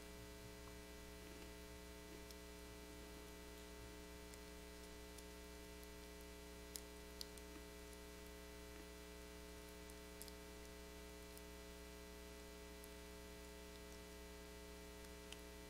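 Near silence: a steady electrical hum, with a few faint clicks.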